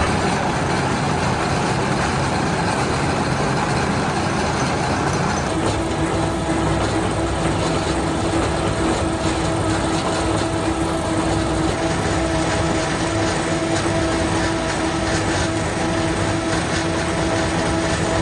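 Heavy machinery in a sawdust pellet plant running steadily with a loud, even rumble. A steady hum tone joins about five and a half seconds in.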